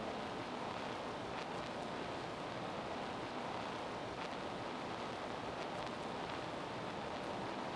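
Steady, even hiss-like noise with a few faint clicks, like wind on a microphone or recording hiss.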